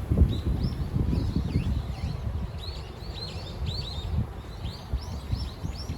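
Birds chirping over and over in short, high, arched notes, with strong wind buffeting the microphone, the gusts loudest in the first couple of seconds.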